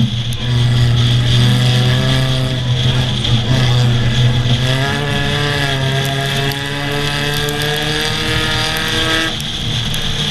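Race car engines running on track, heard from an engineless car being towed by chain. The engine pitch climbs and falls several times through the middle over a steady low rumble of road and wind.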